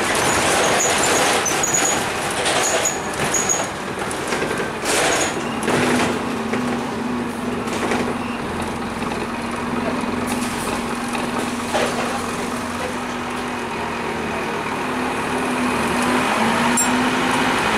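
Inside a Scania N230UD double-decker bus, with its five-cylinder diesel engine and road noise as it drives. About six seconds in a steady hum with a held pitch sets in, with a short air-brake hiss, as the bus slows and stands.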